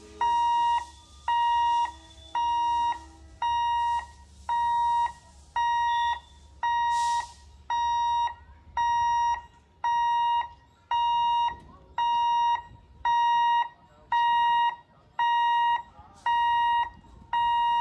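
Level-crossing warning hooter beeping: one steady electronic tone sounding about once a second, the signal that the gate is closed for an approaching train. A short hiss sounds about seven seconds in.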